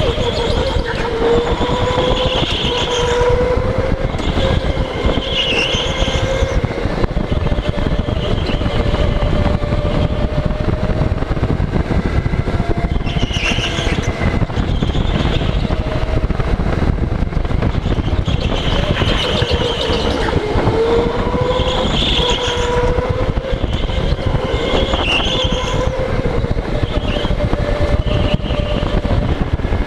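Electric go-kart motor whining, the pitch rising and falling as the kart speeds up and slows for corners, over a steady rumble of the chassis and wind. Tyres squeal briefly several times in the turns.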